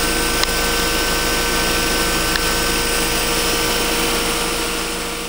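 Trane XL20i heat pump outdoor unit running in cooling mode: its condenser fan blowing and its dual reciprocating compressors running, a steady whooshing hum with a couple of constant tones on top. The sound fades away near the end.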